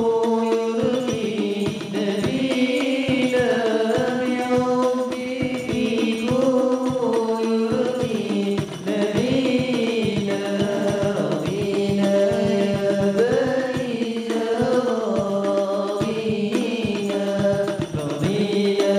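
Young male voices singing an Arabic qasidah in a melismatic, chant-like melody, accompanied by hand-played frame drums beating a steady rhythm.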